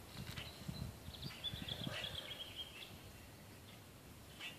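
Faint low bumping and rustling of hands working a serpentine belt around the pulleys in a car's engine bay, with a bird chirping a few times about a second in.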